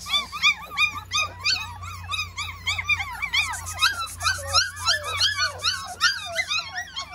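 A litter of five-week-old puppies whining and yelping, many short cries that rise and fall in pitch, several a second and overlapping each other.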